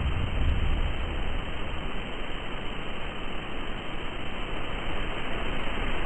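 Steady hissing noise, with a low rumble underneath that eases off about a second in.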